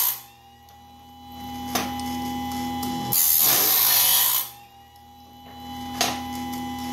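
DIY bandsaw blade sharpener, built from a modified Harbor Freight chainsaw sharpener, running through its cycle with a steady motor hum and whine. The grinding wheel hisses against a tooth for about a second midway, and another grind is just ending at the start. A sharp click comes a little before each grind.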